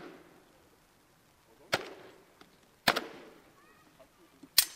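Falchion and seax blows striking round shields and each other in full-contact sword fighting: three sharp cracks, the first just under two seconds in, the next about a second later, and the last near the end, each with a short ringing tail.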